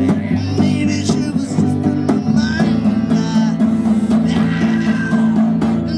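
Acoustic-electric guitar strummed in a steady rhythm during an instrumental passage of a song.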